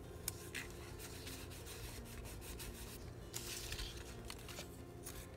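Faint rubbing and rustling as hands press washi tape down onto paper tags and shift the tags about on a table. A couple of light clicks come near the start and a short paper rustle about three and a half seconds in.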